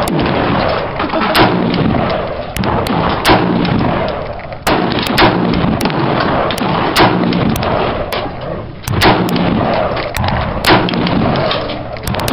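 AR-15 rifle fired semi-automatically: a string of sharp gunshots at uneven spacing, about one to two a second, over a loud continuous background din.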